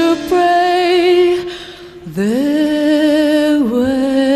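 A woman's singing voice holding long notes with vibrato. It drops away briefly about two seconds in, then slides up into another long held note and rises again near the end.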